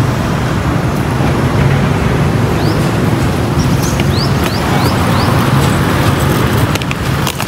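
Street traffic: cars and motorcycles running along a city road, a steady rumble. A few short, high, rising chirps come about halfway through.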